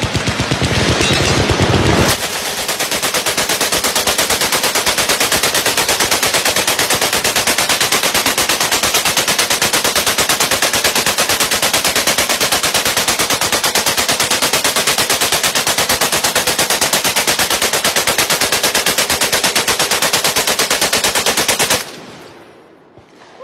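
Belt-fed machine gun fired in one long continuous burst of roughly twenty seconds, about ten shots a second, starting about two seconds in and stopping abruptly near the end.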